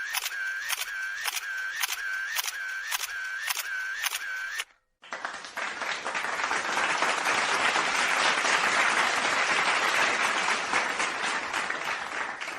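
Camera shutter clicking in a rapid, even series, a little over two clicks a second, for about four and a half seconds. After a brief gap, a crowd's applause builds up and carries on.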